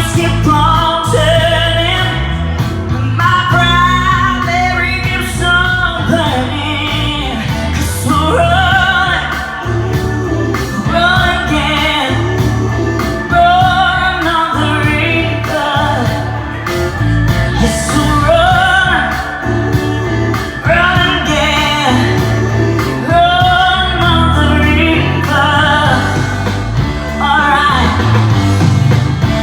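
A song playing: a solo singing voice over a backing track with a steady, heavy bass line.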